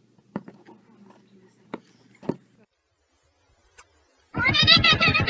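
A few faint clicks over low room noise, then a short silence. About four seconds in comes a loud, drawn-out, wavering cat yowl.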